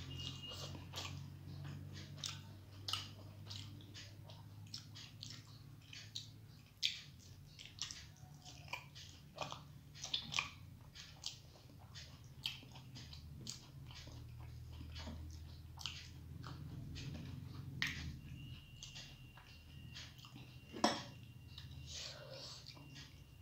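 Close-miked chewing of rice and vegetables, with irregular wet mouth clicks and smacks, and one sharper knock about 21 seconds in.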